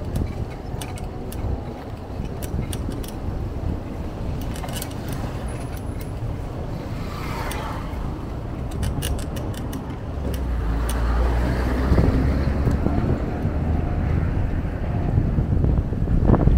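Riding noise from a bicycle on the move: a steady rumble of wind and road, with scattered sharp clicks and rattles. From about ten seconds in, wind buffeting on the microphone grows louder.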